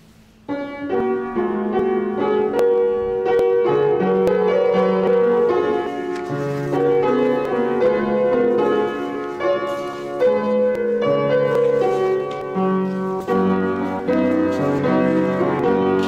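Kawai upright piano being played, sustained chords and a melody line, starting about half a second in.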